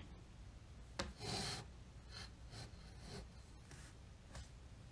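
Faint rubbing and rustling of tarot cards being handled: a soft click about a second in, a short scraping rustle right after, then a few fainter rustles.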